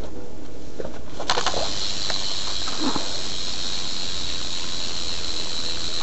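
Sealed rear hub of a BMX's Salt rear wheel freewheeling. About a second in the wheel is set spinning, and the pawls break into a fast, steady, high buzz of clicks that is pretty loud.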